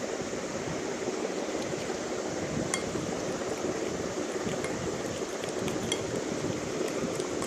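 Steady background hum with a few light clinks of a teaspoon against the mixing bowl as strawberry essence is added to the batter.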